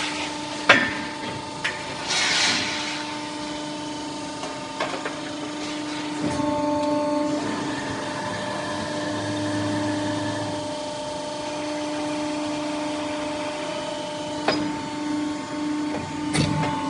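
CNC pipe bending machine running: a steady motor hum with a few sharp clanks at uneven intervals and a short hiss about two seconds in.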